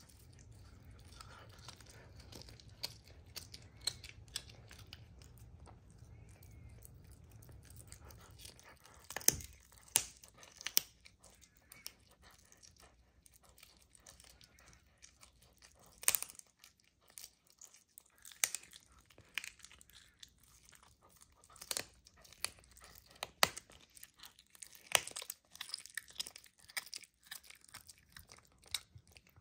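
Serval chewing and tearing at a raw chicken wing held in a hand, with irregular sharp crunches of meat and bone that come thick and loud from about nine seconds in.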